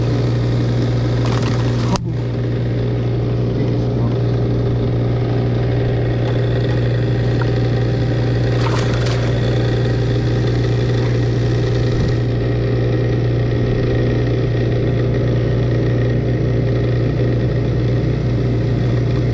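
A steady low mechanical hum, an engine or motor running at constant speed, with a sharp click about two seconds in.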